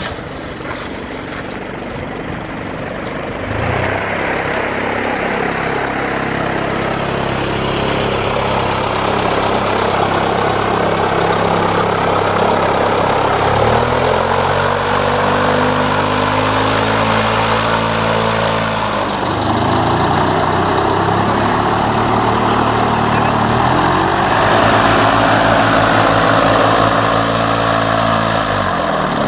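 An engine runs with a steady hum that starts a few seconds in. Its speed drops and picks up again a few times, under a wash of rushing noise.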